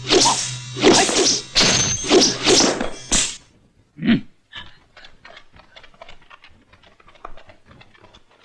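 Kung fu film fight sound effects: a rapid run of loud whacks and thwacks over the first three seconds, then a single hit about four seconds in, followed by faint light tapping.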